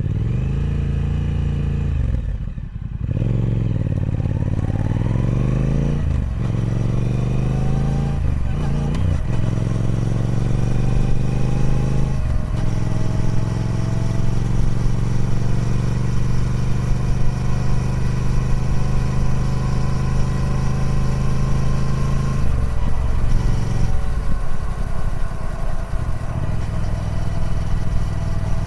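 Triumph Speed Twin 1200's parallel-twin engine on its stock exhaust, pulling up through the gears: the pitch rises and then drops at each of about four upshifts in the first dozen seconds. It then holds a steady cruise, with a couple of brief dips in revs near the end.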